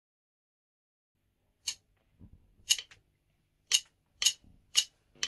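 A drummer's count-in of drumsticks clicked together: six sharp clicks starting nearly two seconds in, the first three a second apart, then three quicker ones half a second apart.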